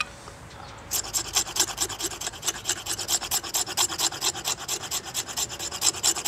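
The sharp 90-degree spine of an Adventure Sworn Wayfarer bushcraft knife scraping along a sassafras stick, taking off bark and fine wood fluff. It comes as a fast run of rasping strokes, several a second, starting about a second in.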